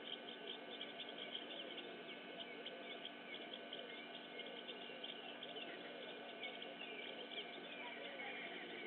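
Many small birds chirping and twittering in a dense, continuous chorus.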